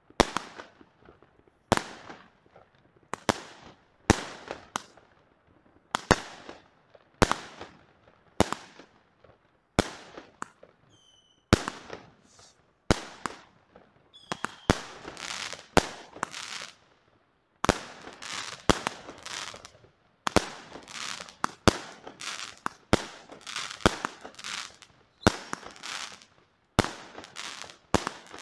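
Aerial fireworks bursting overhead, a sharp bang about once a second, each trailed by crackling. Two short whistling tones come around the middle, and the crackle grows denser in the second half.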